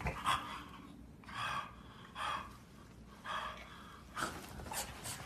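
A baby giving a string of short, breathy excited gasps, about six of them spaced unevenly.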